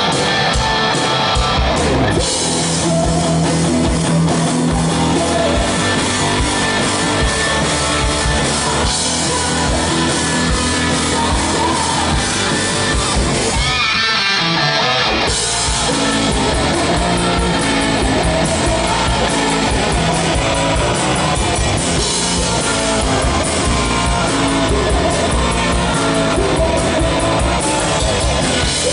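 Live rock band playing at full volume, with electric guitars and a drum kit, briefly breaking pattern about halfway through.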